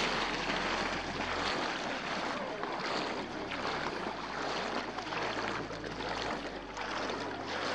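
Shallow lake water sloshing and lapping around a wading person's legs, a steady watery rush, with faint distant voices of bathers.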